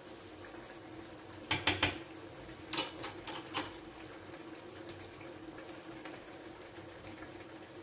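Grated tomato sauce simmering in a clay tajine under a low steady hum, with a small ceramic spoon tapping and clinking against the dish: a quick run of taps about a second and a half in, then three single clinks around three seconds in as spices are shaken in.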